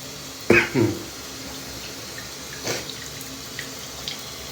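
Shower water running steadily. About half a second in comes a man's loud sneeze: two quick bursts, each falling sharply in pitch. A smaller, weaker burst follows about two seconds later.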